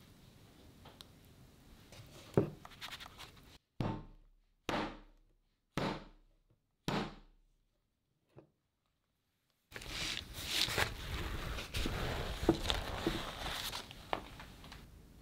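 A metal sheet pan of chocolate cake batter rapped down on the counter four times, about a second apart, each knock ringing briefly, to knock air bubbles out of the batter. Before it, faint scraping of a spatula spreading the batter with one sharp knock; afterwards a longer stretch of louder scraping and rustling.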